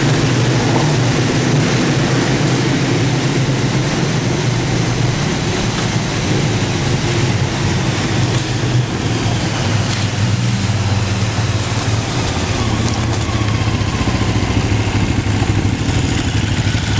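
Motorcycle engine running steadily at low speed, with wind and tyre noise on a dirt surface, echoing inside a narrow rock tunnel. Near the end the bike comes out of the tunnel and slows toward an idle.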